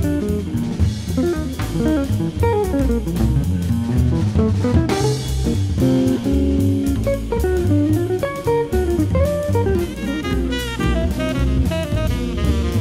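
Background music with guitar and a drum kit keeping a steady beat.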